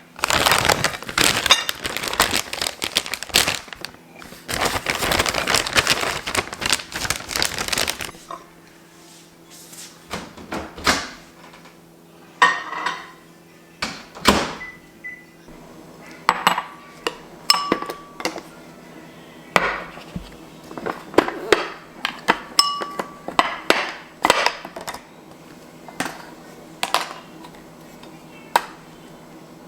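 Dishes and cutlery clinking and clattering as food is plated, a long run of separate sharp clinks, some of them ringing briefly, over a steady low hum. For the first several seconds a dense, loud rushing noise covers everything, stopping once briefly and then cutting off.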